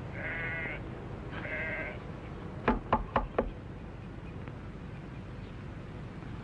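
An animal bleating twice, then four quick, sharp knocks in under a second.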